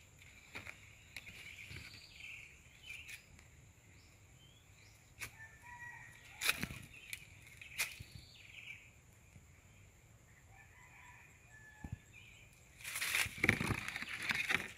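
Leaves and vines rustling as they brush against a handheld camera, with a few sharp clicks and the loudest, longest rustle near the end, over a steady high-pitched insect hum.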